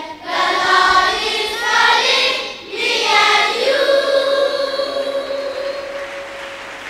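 Children's choir singing a gospel song in unison, the last phrase ending on a long held note that dies away near the end.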